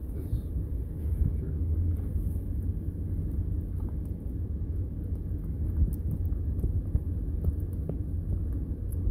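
Low, steady rumble heard in a stopped car's cabin with the window down, with a few faint clicks.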